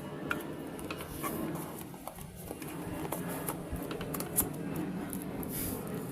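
Scattered light clicks and rustling from hands handling a puzzle cube's box and packaging.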